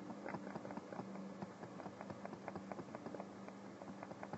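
Faint, rapid, irregular clicking over a low steady hum, from a computer mouse stepping a video frame by frame.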